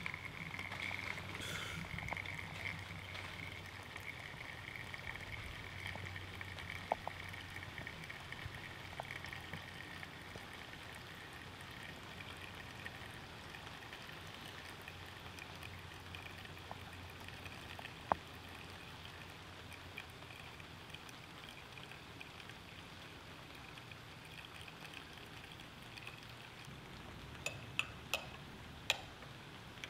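Espresso from a Flair 58 manual lever espresso maker running in a thin stream from a bottomless portafilter into a glass cup: a faint, steady trickle and hiss that eases off over the first ten seconds or so. A few light clicks near the end.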